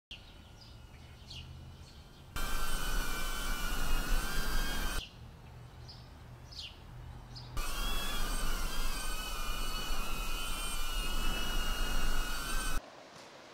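FPV quadcopter drone's motors and propellers whining in flight, several close tones wavering in pitch with the throttle, in two long stretches about two and a half and five seconds long. Between and before them, birds chirp in the quieter woodland air.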